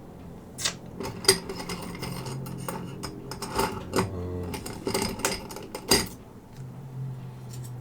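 Small metal tools clicking and clinking irregularly against each other and the work, a dozen or so sharp clicks with the loudest about a second in and again about six seconds in, over a low steady hum.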